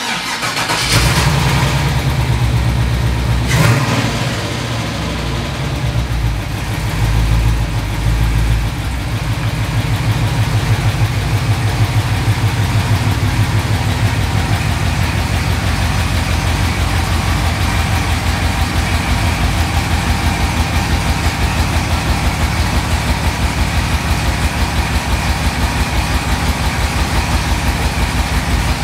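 Chevrolet S-10 pickup's engine running as the truck is driven slowly into the garage, heavier for the first several seconds with a sharp knock about four seconds in, then settling to an idle with a steady, even pulse.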